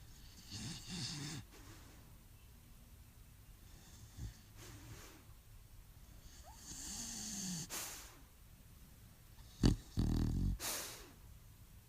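Staffordshire Bull Terrier snoring and snorting in her sleep while dreaming: irregular breaths and snuffles, then a sharp snort and a loud snore near the end.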